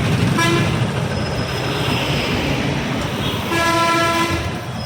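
Bus horn honking twice over steady road traffic noise: a short toot about half a second in, then a longer blast of about a second near the end.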